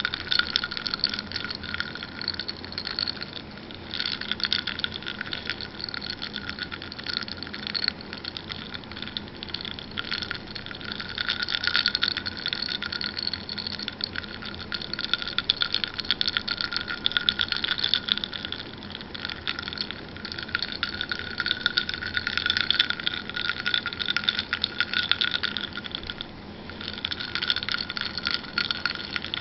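Ice cubes clinking and rattling against a glass of water as it is swirled, a dense continuous clatter with brief lulls about four seconds in and again near the end.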